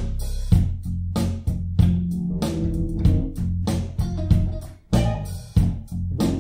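Music: plucked guitar and a prominent bass guitar line over a steady beat.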